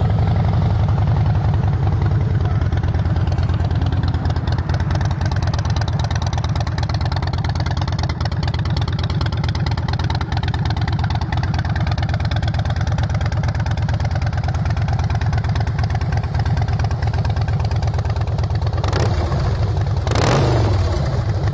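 2007 Harley-Davidson Softail Custom's 96-cubic-inch V-twin, freshly started, idling steadily through Vance & Hines short slash-cut exhaust. Near the end the throttle is blipped briefly, and the revs rise and fall back to idle.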